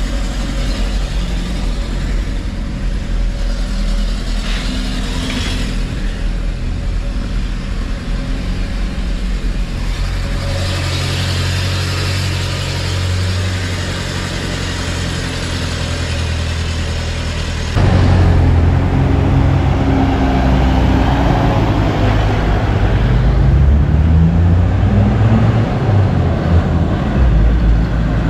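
Off-road 4x4 vehicle's engine running while driving, a steady low drone. It gets suddenly louder about two-thirds of the way through.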